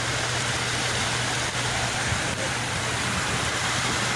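Continuous, steady rush of sea waves, with a constant low hum underneath.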